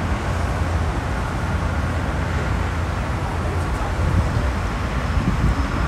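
Steady traffic and engine noise: a low, even hum under a constant hiss, with no distinct events.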